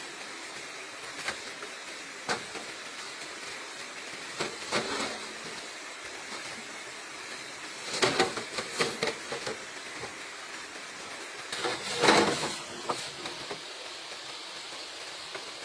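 Handwork on bamboo: a few sharp knocks, then two louder bursts of scraping and rustling about eight and twelve seconds in, over a steady hiss.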